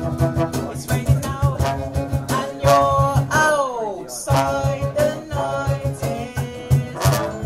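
A small band playing live: acoustic guitar and brass over a steady low beat, with a falling glide in pitch a little past three seconds in.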